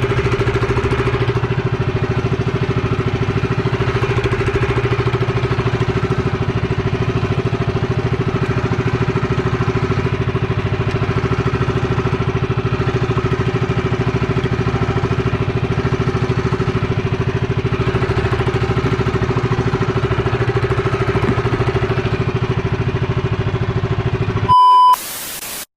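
A small boat's engine running steadily at low, even speed. Near the end comes a short beep and a harsh burst of noise, then a sudden cut.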